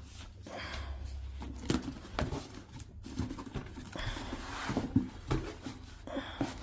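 Handling noise of paper and packaging: uneven rustling with several light clicks and knocks.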